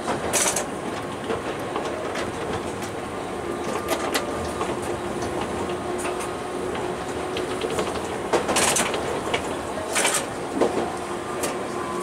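Tokyu Setagaya Line tram running along its track, heard from inside the car: a steady rumble of wheels on rail with a faint motor whine, broken by a few sharp clacks of the wheels over the track. The whine drops in pitch near the end.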